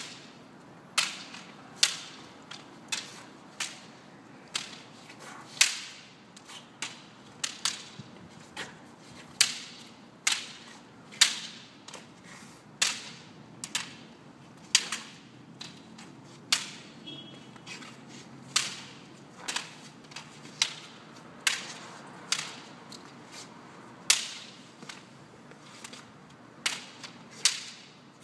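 Bamboo shinai swords clacking against each other and against a plastic toy lightsaber in a sparring drill: sharp single clacks a little more than once a second, unevenly spaced, with some quick pairs.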